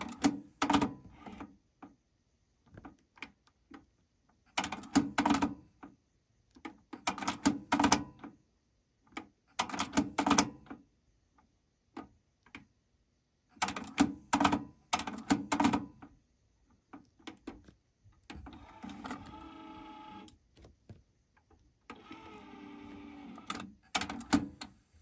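The right-hand deck (Deck 2) of a Technics RS-TR373 dual cassette deck, the deck with the fault, clicking and clunking in clusters as its transport buttons are pressed and the tape mechanism engages. Near the end its motor whirrs steadily for a couple of seconds, twice.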